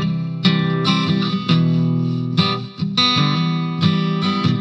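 Background guitar music with plucked notes.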